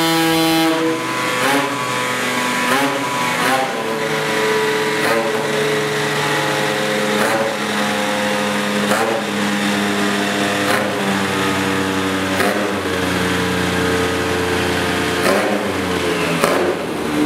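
Tuned Piaggio 180 LC two-stroke scooter engine, breathing through an expansion-chamber pipe, running hard at high revs on a roller dyno. Its pitch holds steady and then shifts in steps every second or two, with short breaks in between.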